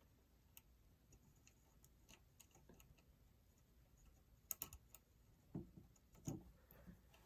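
Near silence with faint, scattered small clicks and taps of a screw, wire and screwdriver being handled at a well pump pressure switch's terminal, a few sharper clicks between about four and six seconds in.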